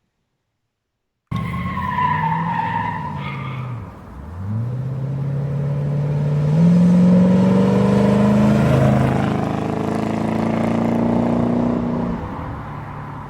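A car engine accelerating hard. It starts abruptly about a second in with a wavering high squeal over it, drops in pitch around four seconds, then climbs again and holds a high, steady note before easing off near the end.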